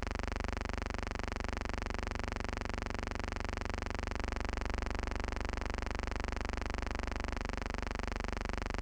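A steady buzzing hum that holds the same level throughout, with no sound events in it.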